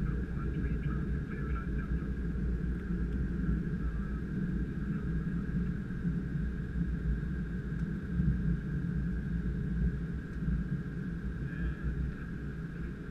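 Cockpit noise of a Gulfstream G550 business jet rolling out on the runway after landing and slowing to turn off: a steady low rumble from the idling engines, airflow and wheels, with a thin steady hum above it.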